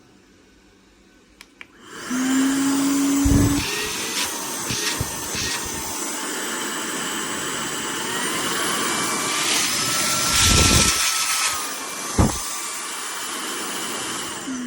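Stanew 4-in-1 cordless stick vacuum cleaner switching on about two seconds in and running, a steady rush of air under a motor whine, with a few thumps along the way.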